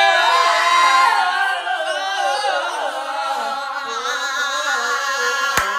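A group of people singing together a cappella, holding long notes that waver in pitch, with a short sharp click near the end.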